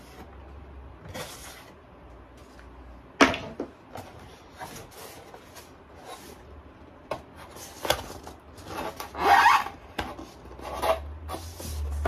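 Knocks, taps and rubbing of a foam-board box being handled, tilted and set down on a cutting mat. The sharpest knock comes about three seconds in, and a longer scraping rub about nine seconds in.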